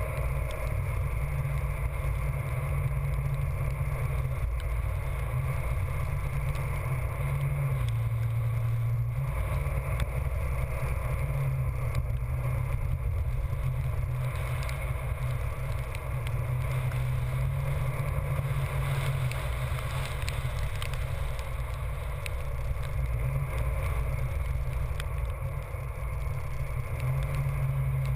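Steady low rumble of a chase vehicle driving fast, with wind buffeting the microphone. A low drone in it dips in pitch a few times and comes back up.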